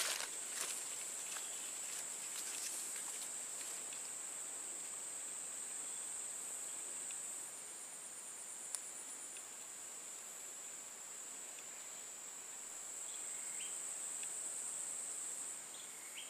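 Steady, high-pitched drone of insects, with one short click about nine seconds in.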